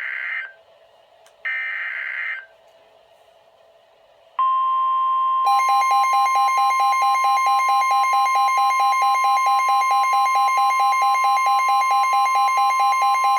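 Two bursts of NOAA Weather Radio SAME header data tones, one ending just after the start and another about a second and a half in. After a short gap, the steady 1050 Hz warning alarm tone starts about four seconds in. About a second later a Midland WR-120EZ weather radio's rapidly pulsing alert beep joins it; together they announce an incoming severe thunderstorm warning.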